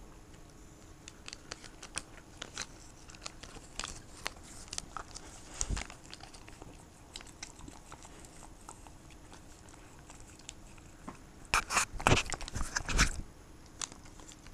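A dog licking and smacking at a tuna paste treat squeezed from a tube held to its mouth. Quick wet licks and mouth clicks come scattered, then a loud close run of them a little before the end.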